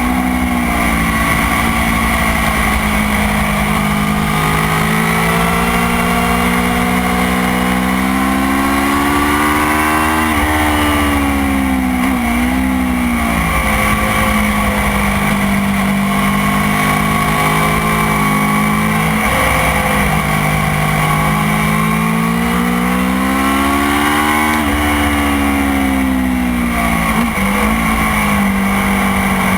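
Motorcycle engine at racing speed, its pitch climbing and falling over and over, with sudden drops in pitch several times as the revs come down under braking.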